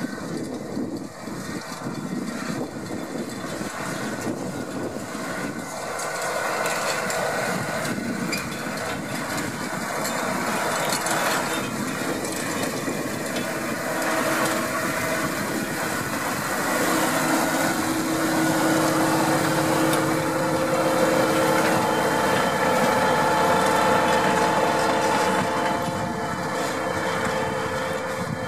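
Deutz-Fahr 6155 tractor's engine running steadily under load while pulling a power harrow through the soil, growing louder as the tractor draws close, loudest in the second half.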